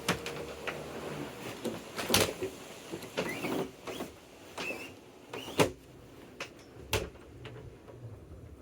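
Irregular knocks, clicks and clatter of household objects being handled and set down, roughly one a second, the loudest about two seconds and five and a half seconds in.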